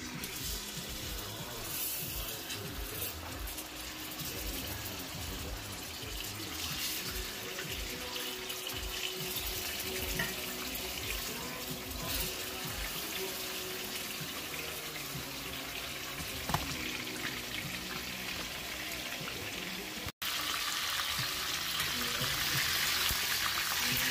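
Seasoned steaks sizzling in hot oil in a cast-iron skillet, a steady hiss that gets louder near the end.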